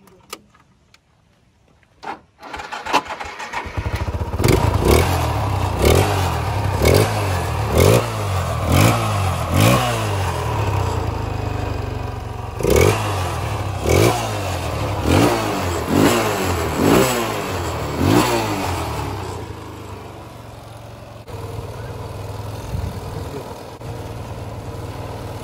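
Hand-built quad bike's engine starting a few seconds in, then revved in short blips about once a second with a brief pause in the middle, before settling to a steady idle for the last few seconds.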